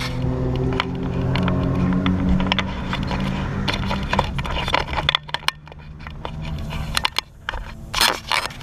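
Ford Focus ST's engine running low and steady in the cabin, with scattered clicks, knocks and scraping from the windscreen-mounted action camera being handled.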